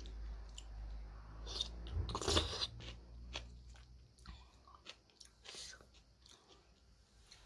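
A person eating noodle soup close to the microphone: chewing and mouth sounds, loudest about two seconds in, followed by scattered small wet clicks.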